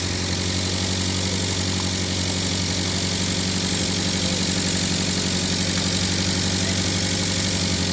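Old skid-steer loader's engine running steadily at low speed, an even low hum with no change in pitch.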